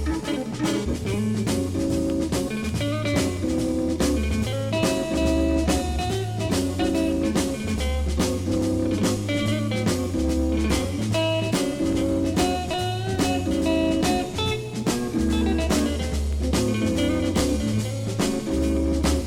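1960s soul-jazz organ trio playing an instrumental: organ, electric guitar and drums, with a repeating bass line and a steady beat.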